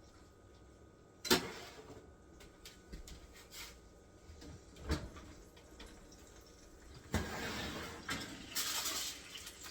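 Kitchen oven being opened to check on a pan of chicken: a sharp clunk a little over a second in, a lighter knock about five seconds in, then a few seconds of rustling and scraping near the end.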